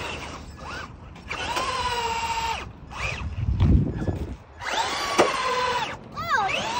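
Electric motor of a battery-powered RC car whining in two short bursts, its pitch rising and falling as it speeds up and slows. A few low thumps come about halfway through.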